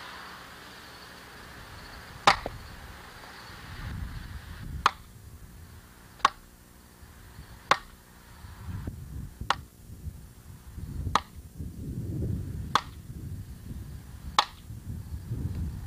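Hammer striking a wooden block set on top of a 2-inch pipe, driving the pipe into the ground as a kettle pot support: eight sharp strikes about every one and a half seconds, the first the loudest.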